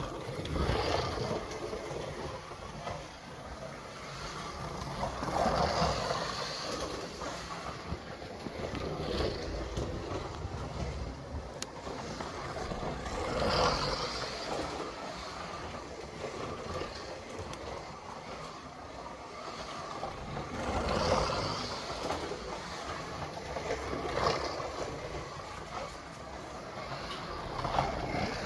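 VK Commodore slot car running laps on a plastic track: a steady whirring rumble from its small electric motor, gears and tyres that swells louder several times as the car passes close.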